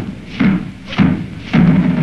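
Muffled drums beating a slow funeral cadence, about two strokes a second, with some strokes drawn out into short rolls.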